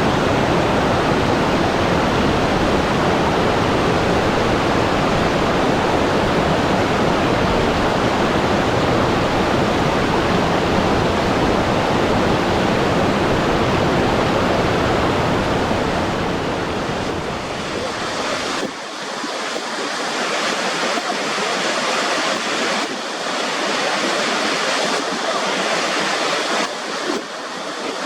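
Steady rushing water, a full, deep rush with no pitch to it. About two-thirds of the way through it changes abruptly to a thinner, hissier rush without the low rumble, with slight swells.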